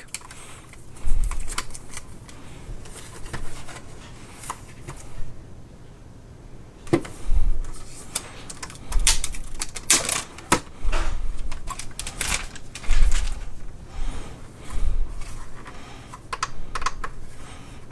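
Handling noise from a dual-bay hard drive docking station being picked up and handled: scattered clicks and taps with a few low thumps.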